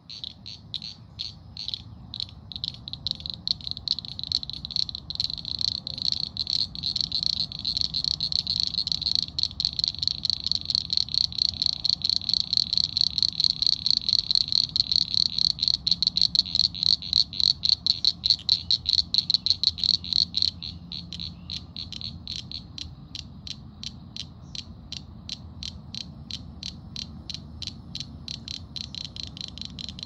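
A frog calling with a long run of short, high notes that start slowly and speed up to several a second. They grow louder, then drop to a quieter steady run about twenty seconds in.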